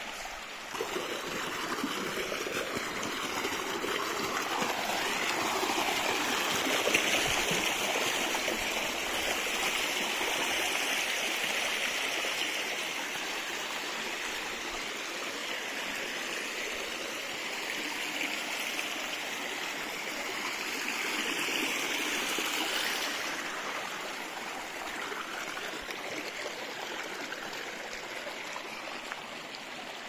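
Shallow mountain stream running and burbling over rocks and stones in a steady wash. It swells about a second in and eases off somewhat near the end.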